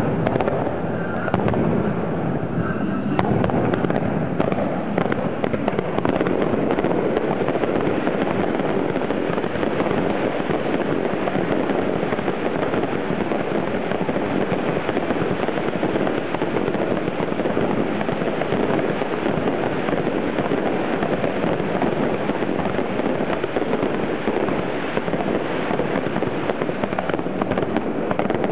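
Aerial fireworks shells launching and bursting in a dense, unbroken barrage, heard close up at the firing site: a continuous rapid run of overlapping reports with no pauses.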